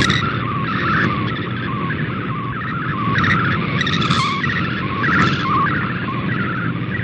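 MFSK64 digital-mode image transmission received on a shortwave broadcast: a continuous warbling, hissy data signal over steady low radio static.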